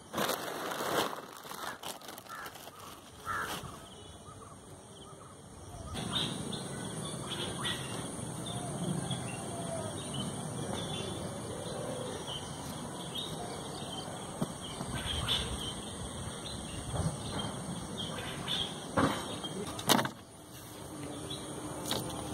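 Outdoor garden background with birds calling, and a few sharp clicks or knocks, the loudest two close together near the end.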